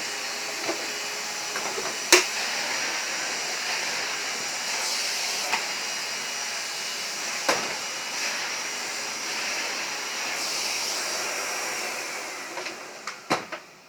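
A 1995 Hoover vacuum cleaner running steadily with a high whine and a rushing of air. It gives a few sharp clicks, the loudest about two seconds in, and dies away near the end.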